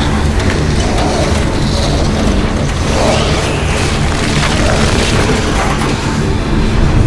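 Film sound design of a hellscape: a loud, continuous deep rumble with dense noise over it and a music score underneath.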